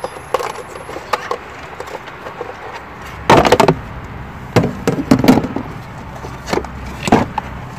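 Handling noise in a car's engine bay: a series of irregular knocks and clatters against plastic engine covers, loudest in a short cluster near the middle.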